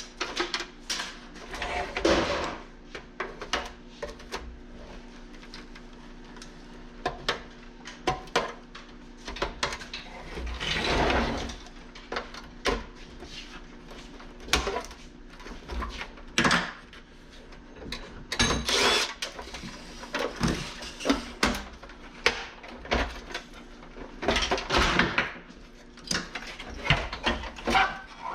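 Irregular knocks, clicks and scraping of plastic and metal parts as an old dehumidifier is pulled apart by hand for scrap, with parts being cut and wrenched free. Now and then a longer scraping rustle.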